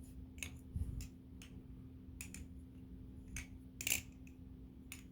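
NRB Konig balisong trainer being flipped: irregular sharp clicks and clacks as the handles and blade swing around and knock together, the loudest about four seconds in.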